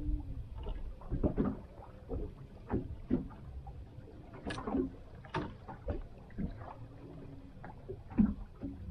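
Water slapping against the hull of a small drifting pilothouse boat, with irregular knocks and clunks on board, the sharpest about eight seconds in.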